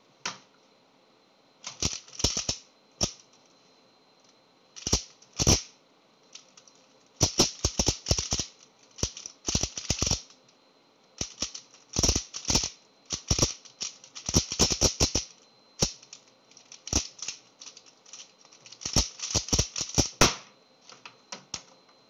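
A plastic 3x3 speedcube turned at speed through one solve: bursts of rapid clacking layer turns, broken by pauses of about a second. The clacking starts about two seconds in and stops abruptly near the end, when the solve is finished.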